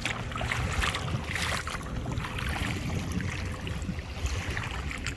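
Outdoor wind buffeting the microphone beside open lake water, a heavy low rumble with a rushing, splashy hiss, over a faint steady hum.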